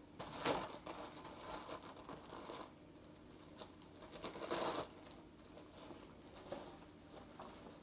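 Parcel packaging crinkling and rustling as it is opened by hand, with louder bursts about half a second in and again around four and a half seconds in.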